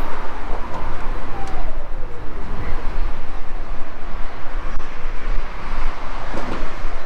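Steady low vehicle rumble with road traffic noise, including heavy trucks.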